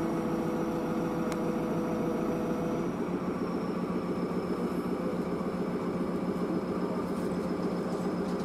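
A motor vehicle engine idling steadily, its tone changing slightly about three seconds in.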